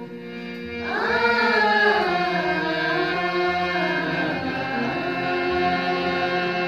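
Group of singers performing a cappella-style: a steady held chord runs throughout, and about a second in a solo voice enters over it with a sliding, ornamented melody.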